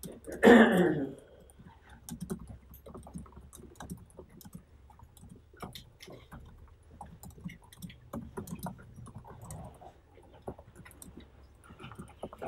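Laptop keyboard and touchpad being typed on and clicked: scattered light key clicks in an irregular run. About half a second in, a short, loud vocal sound falls in pitch.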